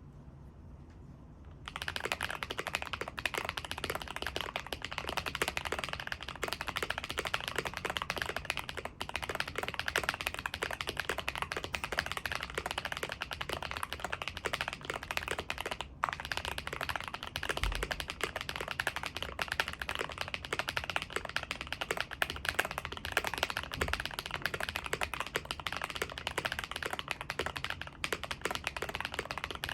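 Continuous typing on a KBD67 Lite mechanical keyboard with a POM plate and lubed Holy Panda tactile switches: a dense, unbroken run of keystrokes with a pretty thocky sound. The typing starts about two seconds in.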